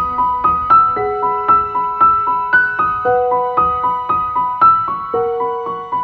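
Background music: a piano playing a quick, repeating pattern of single notes, about four a second, each note fading after it is struck.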